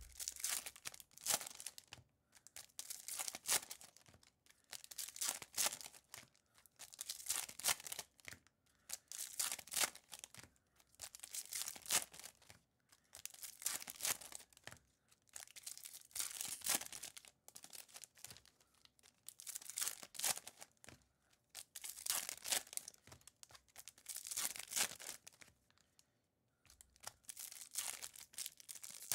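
Foil trading-card pack wrappers being torn open and crinkled by hand, in repeated crackling bursts about every one to two seconds.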